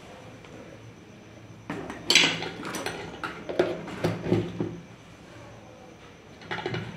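Light clinks and knocks of small hard objects being handled: a busy run from about two seconds in to nearly five, then a shorter one near the end.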